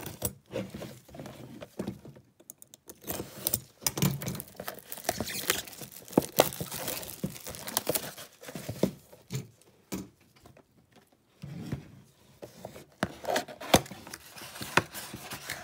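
Plastic shrink-wrap being torn and crinkled off a cardboard trading-card box, then the box's cardboard flaps being pulled open, with irregular crackling, rustling and clicks and a short pause about ten seconds in.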